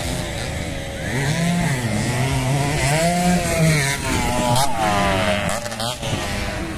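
Several motocross dirt bike engines revving, the pitch rising and falling repeatedly as the riders work the throttle over the jumps.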